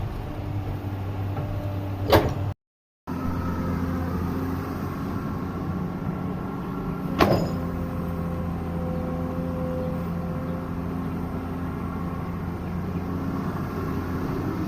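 Excavator's diesel engine running steadily, with two sharp knocks about five seconds apart. The sound cuts out for a moment just after the first knock.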